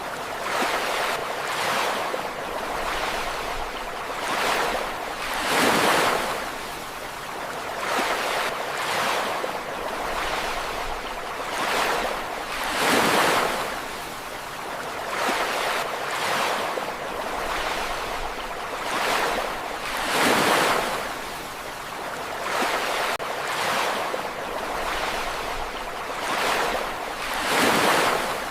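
Ocean waves breaking on a shore, a steady hiss of surf that swells with each breaker every few seconds and then draws back.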